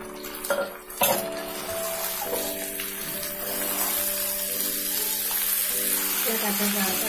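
Spice-marinated chicken pieces sizzling in hot oil with onions as they go into the pan and are stirred with a spatula. There are a couple of sharp knocks against the pan about a second in, and the sizzle then holds steady.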